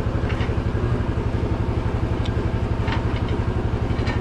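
An engine idling steadily with an even low chugging, and a few faint clicks over it.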